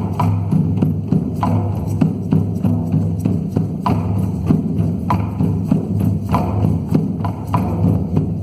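Music with sustained low notes and knocking percussion strokes.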